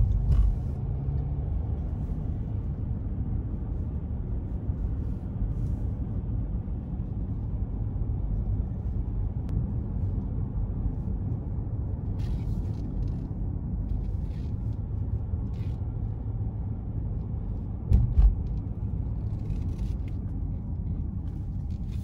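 Steady low rumble of road and engine noise inside the cabin of a moving car, with a brief thump about eighteen seconds in.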